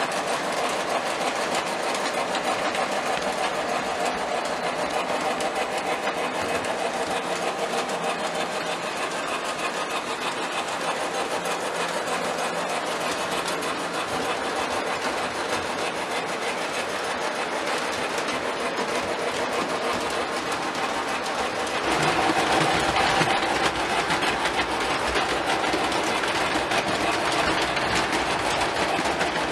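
Lionel O27-gauge model trains running on three-rail track, a steady whir of their motors and wheels on the rails. It grows louder about 22 seconds in.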